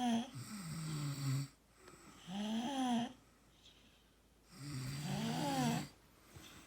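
A person snoring: three drawn-out, pitched snores about a second long each, with quiet breathing gaps between them in a regular rhythm.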